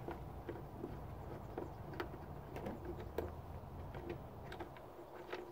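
Faint, irregular clicks and taps of a screwdriver and screws working on the plastic body panels of a Kymco Agility City 50 scooter as the panel screws are taken out.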